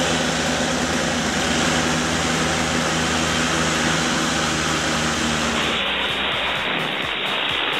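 Steady drone of a twin-turboprop airliner's engines and propellers heard inside the cockpit on final approach and touchdown, with a few steady hum tones under a loud rushing noise. A little before the end it switches abruptly to a duller rushing noise.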